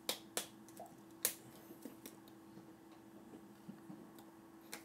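A few scattered sharp clicks and taps, hands striking each other and the body while a person signs, over a faint steady hum; the loudest tap comes about a second and a quarter in.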